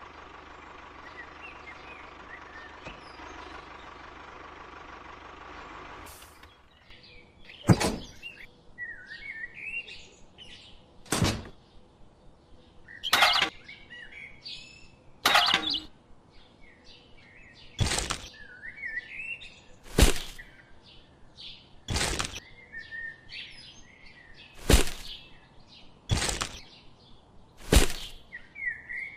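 A steady hum that stops about six seconds in, then sharp knocks roughly every two seconds, with small birds chirping between them.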